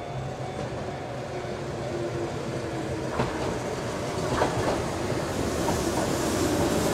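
Keihan 600 series two-car electric train running into the station, growing steadily louder as it nears, with a few sharp wheel clicks on the track about three and four and a half seconds in.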